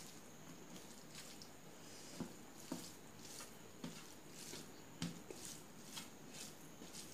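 Fingers mixing rice with fish curry on a steel plate: soft squishing of the wet rice and irregular light clicks of fingertips against the metal, roughly one or two a second.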